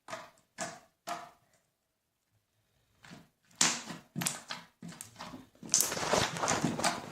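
Homemade slime squished by hand for ASMR: a few short squishes, a pause of about a second and a half, then a denser run of squishing from about three and a half seconds in.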